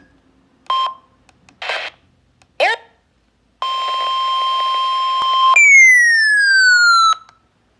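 Electronic alert beeps: three short bursts, one of them a quick sliding chirp. Then a steady high alert tone with hiss under it for about two seconds, changing into a falling tone that slides down over about a second and a half and stops abruptly.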